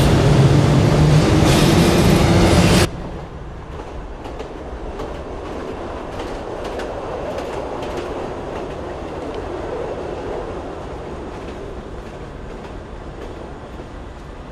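Metro train running: a loud rumble of wheels and motor that drops suddenly about three seconds in to a quieter, steady rumble with light clicking of wheels over the rails.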